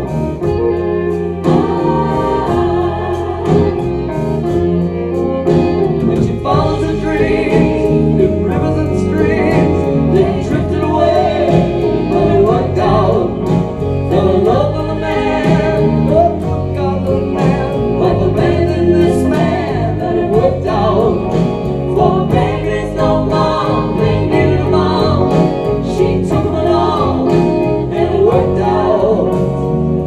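Live band playing a song, with two women singing together at the front and a choir of singers joining in over piano and the rest of the band.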